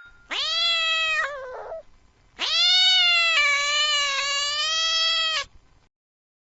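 A cat meowing twice: a meow of about a second and a half that drops in pitch at its end, then a long, wavering meow of about three seconds that cuts off abruptly.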